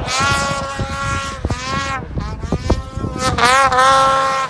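Ski-Doo Summit 850 snowmobile's two-stroke engine revving hard, its high engine note rising and falling several times and loudest near the end.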